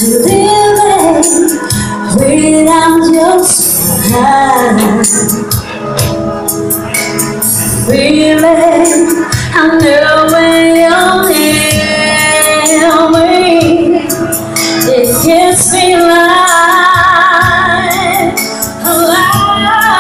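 Live amateur vocal performance of a slow pop ballad, mainly a woman's singing voice with wavering vibrato on held notes, over an accompaniment with light percussion.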